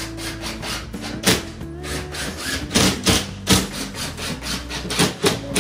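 Background music with held notes and a beat of irregular drum-like hits, several a second.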